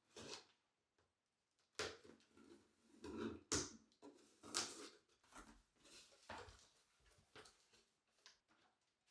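Packaging and parts being handled during an unboxing: irregular rustling with scattered light knocks, a sharper knock near the middle.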